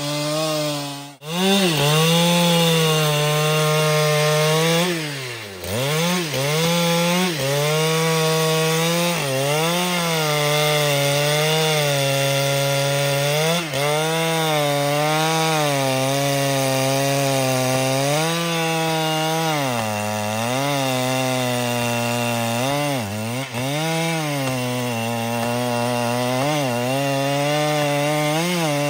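Husqvarna 395XP, a 94 cc two-stroke chainsaw, running at full throttle and cutting through a large trembesi log. After a brief break about a second in, the engine pitch sags several times as the chain bites into the wood and then climbs back.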